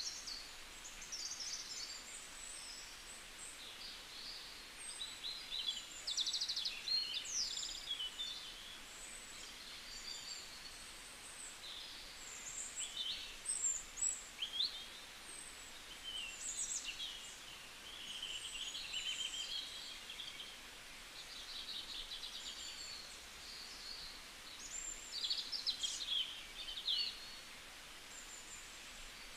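Small birds chirping and singing, with many short calls, quick pitch glides and trills throughout, over a steady hiss.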